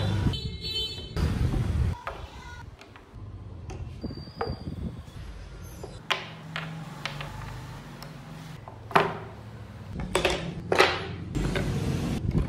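Carved wooden model-car parts knocking and clicking as they are set down and shuffled on a work board, several sharp taps close together in the second half, over a low rumble that is loudest in the first two seconds.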